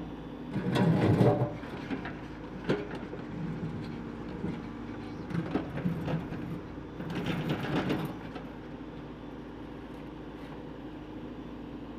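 Caterpillar backhoe loader's diesel engine running steadily while the rear backhoe bucket digs and scrapes through broken concrete rubble. There are louder scraping passages about a second in and again around seven to eight seconds in, with a few knocks between.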